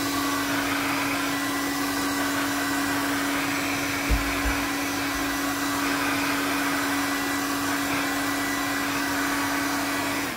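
Electric hair dryer blowing steadily with a constant motor hum, drying the drone's water-soaked electronics; it switches off right at the end. A brief low thump about four seconds in.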